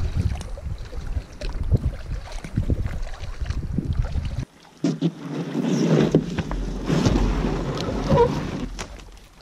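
Wind buffeting the microphone over water sounds from a canoe being paddled, with small knocks. It breaks off suddenly, and after a short gap comes a louder stretch of scraping and rustling on a rocky, brushy shore where the canoe is pulled up, fading near the end.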